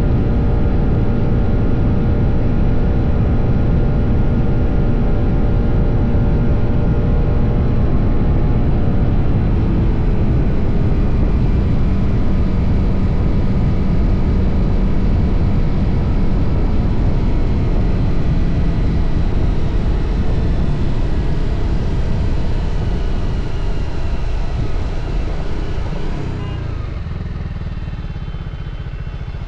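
TVS Apache RR 310's single-cylinder engine under way, with steady wind and road noise; about three-quarters of the way through, the noise falls away as the bike slows to a low-speed run.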